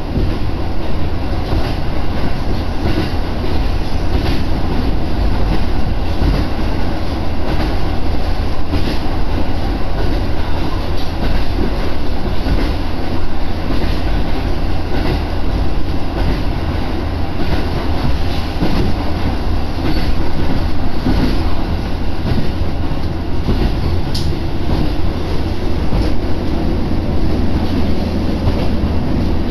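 Interior of a diesel railcar running along the track: a steady low rumble of engine and wheels on rail, with faint irregular clicks from the rail joints.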